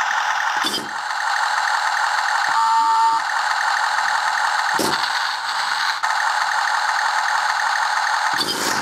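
Miniature 1/72 RC Tiger tank running: its small gear motors whir and plastic tracks rattle steadily. There are sharp knocks at about one second, five seconds and near the end, and a brief tone about two and a half seconds in.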